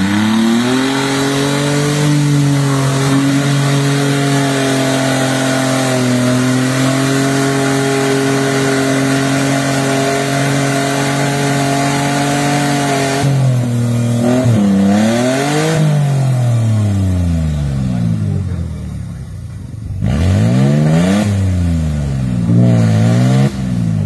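Off-road 4x4 competition vehicle's engine revving hard under load in deep mud. The revs climb in the first second and hold nearly steady for about twelve seconds, then drop and are revved up and down several times.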